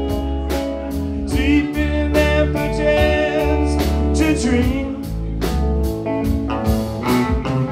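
Live band playing a mid-tempo blues-rock song: electric guitars, keyboards and a drum kit with a steady beat.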